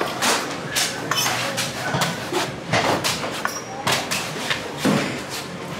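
Knife chops on coconuts: sharp, irregular knocks about once or twice a second, with voices in the background.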